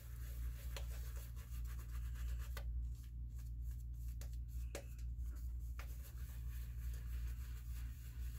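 Shaving brush swirling wet lather on a bald scalp: soft, irregular rubbing strokes of bristles through the lather over a steady low hum.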